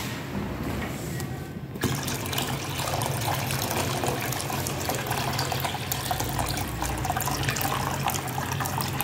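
Water poured from a plastic bucket into a plastic-lined box, splashing steadily; the pour starts suddenly about two seconds in.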